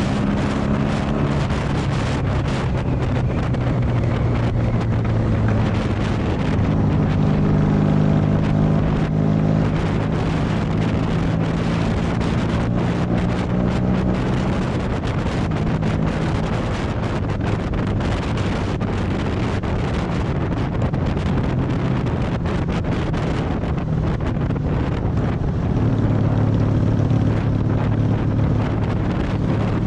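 Honda Magna VF750's V4 engine running while riding, with wind rushing over the microphone. The engine note stands out more strongly in stretches, fading under the wind in the middle and rising again near the end.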